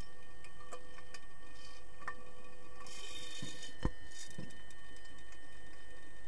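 Underwater sound of an underwater hockey game: a steady low hum with scattered sharp clicks of sticks and puck striking the pool floor. A short fizz of bubbles comes around three seconds in, and the loudest knock comes just before four seconds, as a swimmer's fin passes over the camera.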